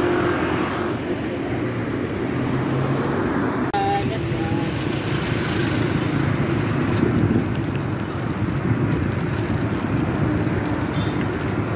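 Steady rushing road noise from a bicycle riding along a city street, with traffic around it. A short pitched sound is heard about four seconds in and again near the end.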